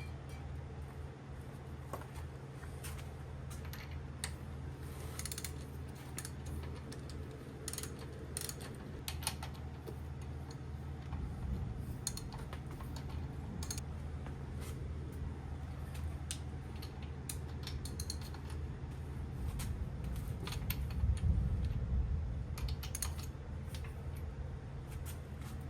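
Scattered light clicks and small metal clinks of engine parts being handled during main bearing and crankshaft installation, over a steady low hum.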